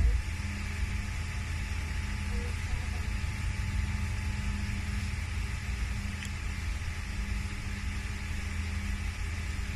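Steady low rumble with a faint hum that comes and goes: background noise with no distinct event.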